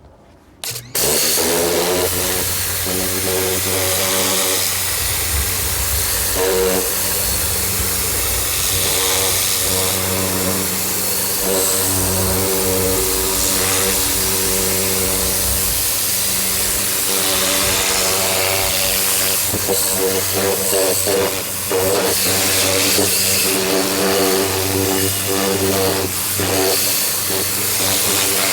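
Ryobi 1600 PSI electric pressure washer starting up about a second in, its motor and pump then running with a steady buzzing hum over the hiss of the water spray.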